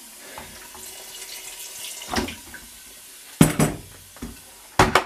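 Kitchen tap running as water is added to a pot of simmering beef, a steady rush for about three seconds. Two loud knocks follow, one about halfway through and one near the end.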